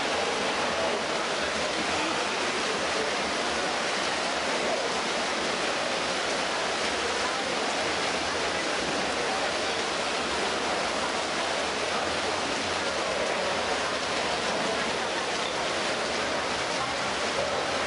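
Indoor swimming pool during a race: a steady, even wash of splashing water with echoing crowd voices mixed in.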